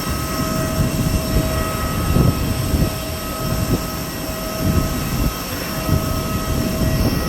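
Jet aircraft engines running: a steady rumble with thin, steady whining tones over it.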